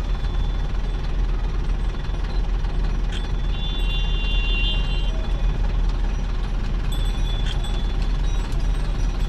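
Steady low rumble of a vehicle's engine and tyres heard from inside the cab while driving slowly. Short high-pitched tones ring out about three and a half seconds in and again around seven seconds.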